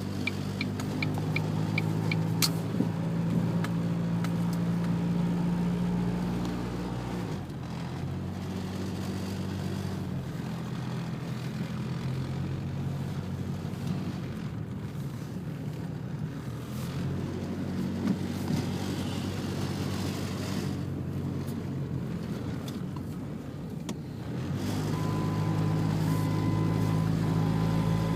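Car engine running steadily, its note shifting about seven seconds in and again near the end. A faint short beep repeats over the last few seconds.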